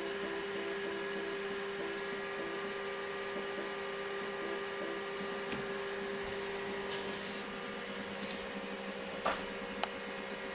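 Apple Lisa 2/5 and its ProFile hard disk humming with a steady whine while the Lisa shuts itself down. One tone cuts out about seven seconds in, and two sharp clicks about half a second apart follow near the end.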